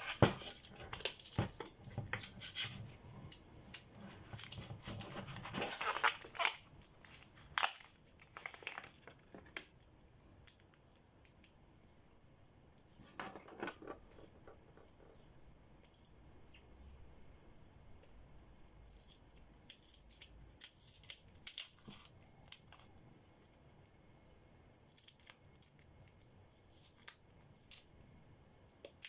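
Hands working on a drone battery pack: scattered clicks, scrapes and crinkling of wrap or tape, busiest in the first third, with a quieter stretch in the middle before more handling near the end.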